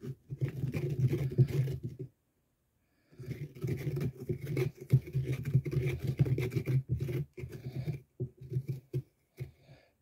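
A person breathing heavily with a growly, rasping voice: one long breath of about two seconds, a pause, then a longer stretch of about five seconds, and shorter huffs near the end.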